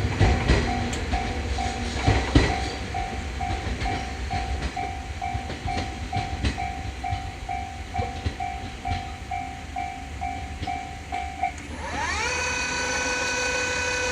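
A Japanese railroad crossing's warning bell dings about twice a second, over the fading rumble and clacks of a passing train. The bell stops about eleven and a half seconds in. A whine then rises in pitch and holds steady.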